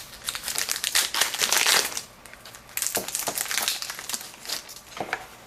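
Foil wrapper of a trading-card pack being torn open and crinkled, densest in the first two seconds, followed by lighter rustling and a few short clicks.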